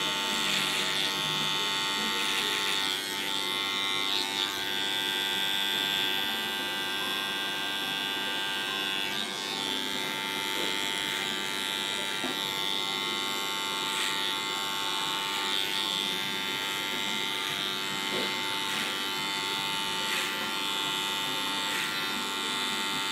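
Wahl electric hair clipper running with a steady buzz while it cuts hair short at the nape over a comb.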